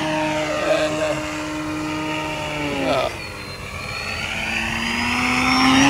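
Electric motor and propeller of a scale RC Fokker Eindecker model in flight: a steady pitched hum that drops in pitch and fades about three seconds in, then builds and rises in pitch again near the end, with a thin high whine above it.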